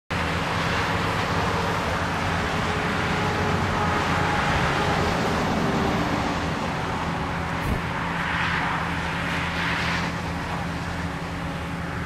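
Asphalt paver's diesel engine running steadily at a paving site, a continuous low hum with a single short knock just past the middle.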